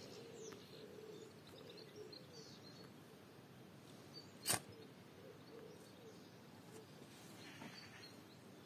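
Faint birds chirping, with one sharp click about four and a half seconds in.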